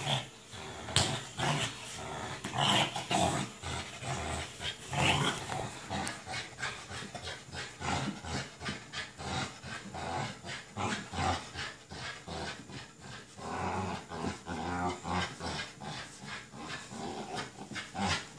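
American Bully puppy growling in short, irregular bursts while pulling on a tug toy.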